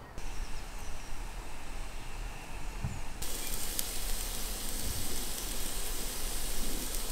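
Beef burgers sizzling on the wire grill of a charcoal barbecue: a steady hiss that becomes brighter and fuller about three seconds in, with a few faint ticks.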